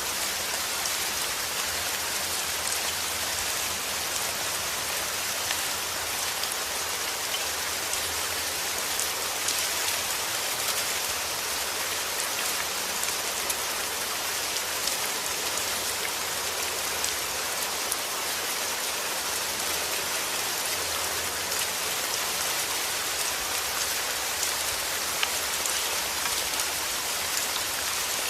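Steady heavy rain: a dense, even hiss with many small drop ticks scattered through it.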